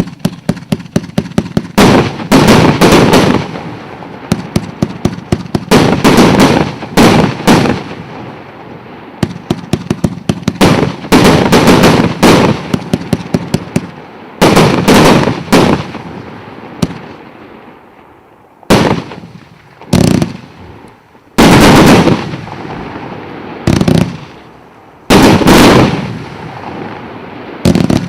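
Fireworks going off in repeated volleys. Fast runs of sharp cracks alternate with louder bursts about a second long, with short gaps between them.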